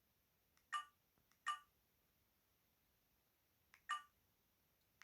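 Keypad beeps from an Alcatel VM202 mobile phone as its keys are pressed to move through the menus: three short beeps, two in the first second and a half and one near the end.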